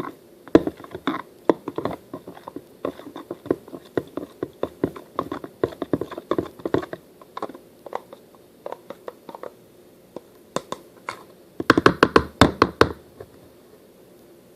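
A utensil stirring Elmer's glue and water in a bowl, scraping and knocking against the bowl in quick irregular strokes. About twelve seconds in comes a quick run of louder knocks.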